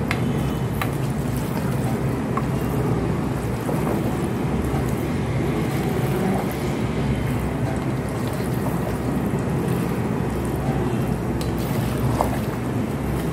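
A steady low rushing noise, with a few faint clicks as a spoon stirs potatoes and spinach in a metal pot.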